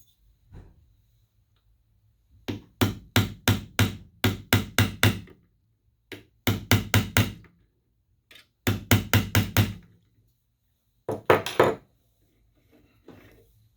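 Hammer tapping a brass punch against a steel watch-clasp hook, in four runs of quick, even strikes, each ringing briefly. The taps are bending the hook closed so that the clasp stops popping open.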